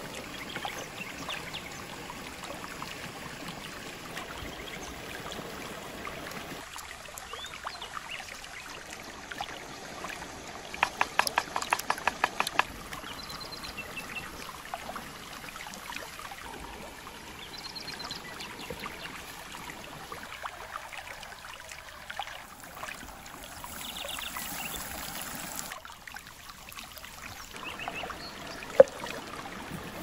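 A flowing stream running steadily in the background. Over it come food-preparation noises: a quick run of sharp taps about eleven seconds in, and a few single sharp knocks near the end as a knife cuts through onion on a wooden board.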